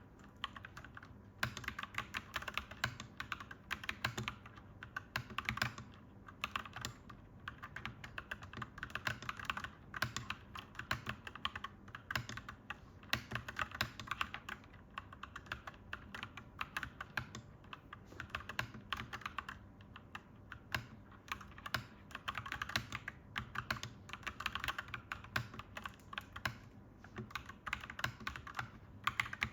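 Clacky mechanical keyboard being typed on steadily, keystrokes coming in quick runs with brief pauses between them.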